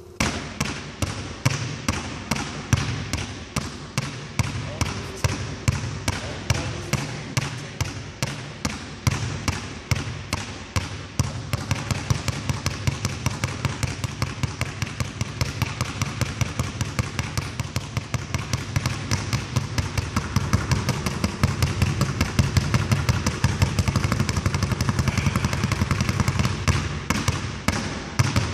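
Two basketballs dribbled at once on a hardwood gym floor: a quick, steady run of bounces that grows denser and a little louder after about twenty seconds.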